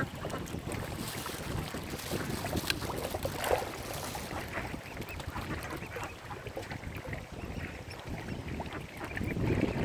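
Wind buffeting the microphone over lakeside water, with a few short waterfowl calls.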